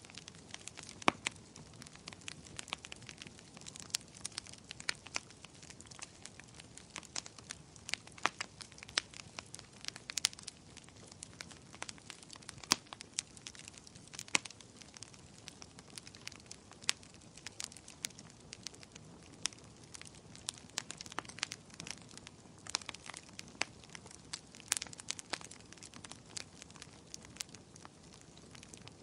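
Wood fire crackling: a soft steady hiss with irregular sharp pops and snaps, a few of them loud.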